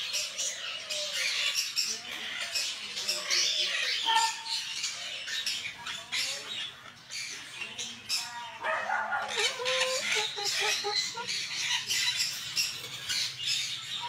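Parrots squawking and chattering: harsh, raspy calls come over and over, with a more tuneful, voice-like call around nine seconds in.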